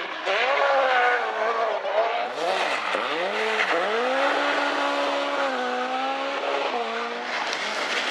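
Mk2 Ford Escort rally car's engine revving hard under full throttle, its pitch rising, dropping sharply twice, then climbing and holding high before stepping down, as the driver lifts and changes gear.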